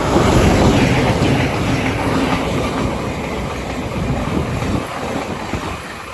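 Thameslink Class 700 electric multiple unit passing through the station, its wheels clattering over the rails. The sound swells sharply at the start, is loudest in the first second or two, then slowly fades as the train goes by.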